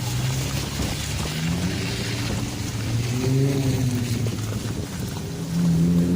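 Holden VT Commodore engine revving as the car is driven hard, its pitch rising and falling and climbing again near the end.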